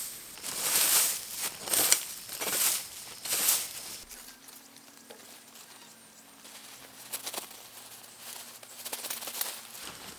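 Rustling and crinkling, four or five loud swells in the first four seconds, then softer, scattered rustles.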